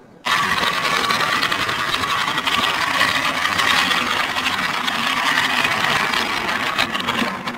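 Small battery-powered toy-train motor and gears whirring steadily as the engine climbs a plastic spiral track. It starts suddenly just after the opening.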